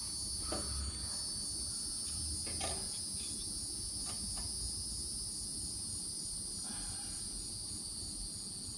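Steady, high-pitched chorus of crickets, with a few faint clicks of hand tools working on the engine.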